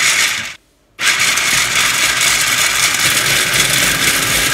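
Black & Decker 8-cup food processor pulsed on almonds, its 450-watt motor spinning the stainless S-blade: a short burst that cuts off, then about a second in a longer steady run of motor whir and nuts being chopped.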